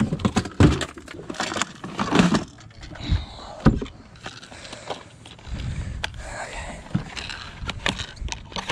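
Hands rummaging through a fabric tackle bag: rustling with scattered sharp clicks and knocks of gear shifting inside.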